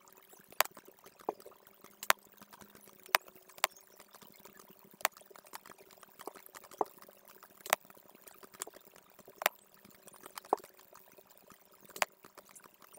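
Computer mouse clicks, sharp and irregular, roughly one a second, as points of a CAD sketch are placed, over a faint steady hum.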